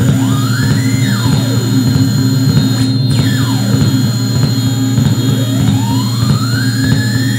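Live experimental electronic noise from synthesizers and patched circuits: a loud steady low drone with thin oscillator tones gliding through it. One tone rises and falls within the first two seconds, another falls about three to four seconds in, and a slow rising sweep starts about five seconds in.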